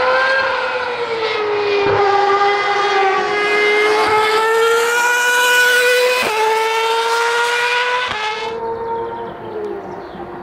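Ferrari Formula 1 car's engine at high revs as the car passes, its pitch climbing between quick upshifts about every two seconds. The sound dulls and fades as the car moves away near the end.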